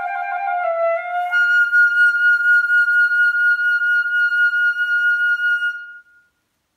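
Solo concert flute playing a few middle-register notes, then leaping up an octave about a second and a half in to a long high note held with vibrato. The note ends the piece, stopping about six seconds in.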